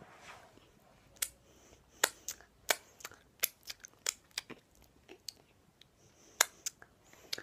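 Wet lip and mouth smacks from sucking and licking ice cream off fingers: an irregular run of sharp smacks starting about a second in, the loudest about two seconds in and again near the end.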